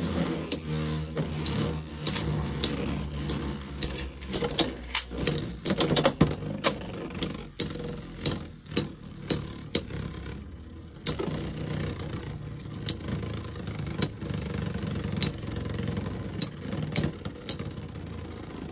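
Two Beyblade X spinning tops, Knight Shield and Wyvern Gale, whirring on the floor of a clear plastic stadium. They knock together in an irregular run of sharp clacks, several a second, thickest in the middle and thinning out toward the end, as the tops spin down in a stamina battle.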